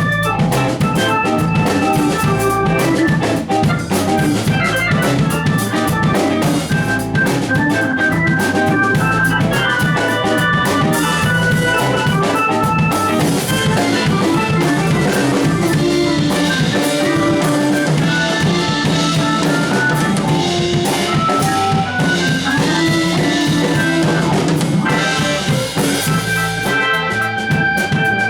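A band playing music at a steady, loud level, with a drum kit prominent under held notes from other instruments.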